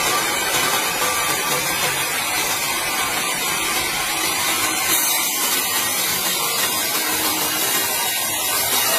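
Sawmill band saw cutting lengthwise through a large log, a steady, even hissing saw noise with machinery running underneath.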